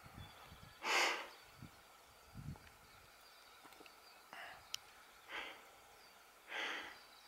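A person breathing audibly close to the microphone, four short breaths a few seconds apart, the first the strongest, over faint outdoor quiet.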